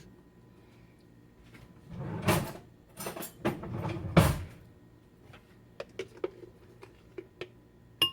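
Kitchen handling sounds: a few loud scraping, rubbing noises about two to four seconds in, then a scatter of light clicks and taps, with a sharper click near the end.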